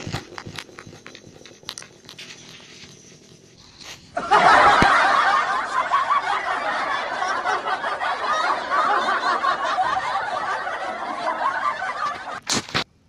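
A canned crowd laughter sound effect starts about four seconds in, after a few seconds of faint clicks, and cuts off near the end.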